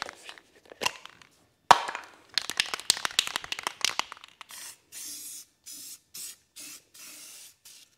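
Aerosol spray can of Rust-Oleum primer being shaken, its mixing ball rattling rapidly, with one sharp click about two seconds in; then the can is sprayed in a series of about seven short hissing bursts, touching up rust spots.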